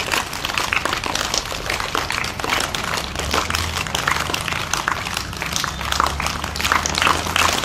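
Audience applauding, a dense patter of hand claps that keeps on at an even level.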